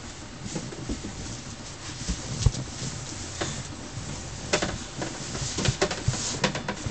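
Scattered light knocks and rustling in a small room, with a sharper thump about two and a half seconds in and a run of clicks near the end.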